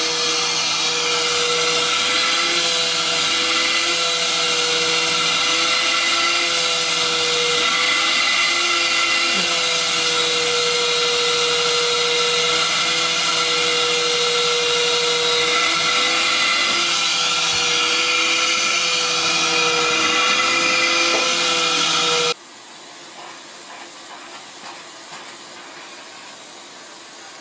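Vacuum cleaner running steadily, a loud motor whine over rushing air, with its wand nozzle held against a cat's fur. It stops suddenly near the end, leaving only faint handling sounds.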